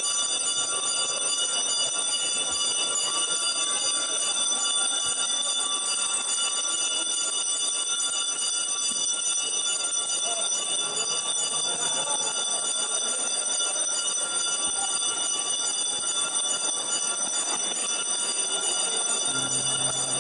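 Bells ringing on without a break, heard as a set of steady high tones that do not fade, over a faint murmur of the crowd in the echoing church.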